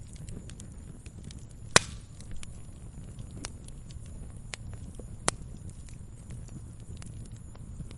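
Wood fire burning, crackling with scattered small snaps over a steady low rumble. Two loud sharp pops stand out, about two seconds in and about five seconds in.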